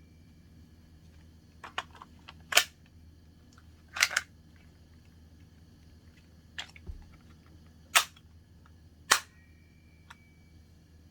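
S2S P99 spring-cocking airsoft pistol being cocked and fired: a series of about six sharp clacks at uneven intervals, some in quick pairs.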